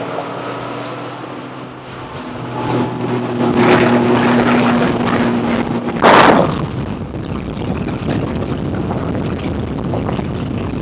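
A bass boat's outboard motor runs at speed with water and wind rushing past. The engine hum is clear for the first several seconds; about six seconds in there is a loud brief rush, after which the even rushing noise covers most of the engine.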